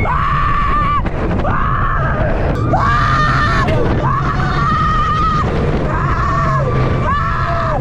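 A roller-coaster rider screaming at full voice as the train drops: about six long, high screams of about a second each with short breaks between them. A steady low rumble runs underneath.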